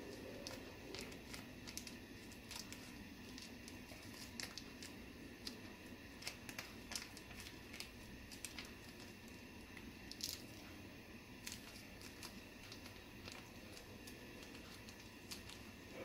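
Broth heating in a wide pan on a gas burner: scattered small pops and ticks from the heating liquid over a faint steady hiss.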